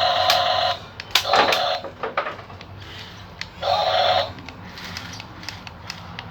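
Small electric motor of a remote-control toy excavator buzzing in short runs: one run stops under a second in, and another lasts about half a second around four seconds in, with scattered clicks and a brief rustle in between.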